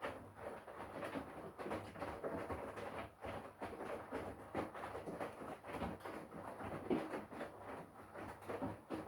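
Front-loading washing machine drum turning a wet wash load: water and laundry slosh and splash in quick, irregular bursts over a faint low motor hum.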